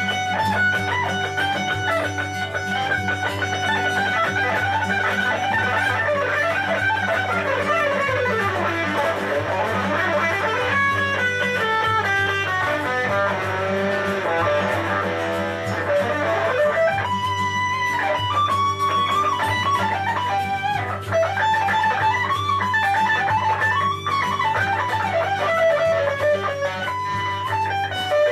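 Guitar playing an improvised solo melody in the Lydian mode over a steady, sustained low backing. It has a fast descending run about eight seconds in and quick runs in the middle.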